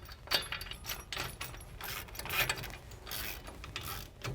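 Ratchet wrench clicking in short, irregular runs, with metal-on-metal clinks, as the caliper mounting bracket bolts are run in on the spindle.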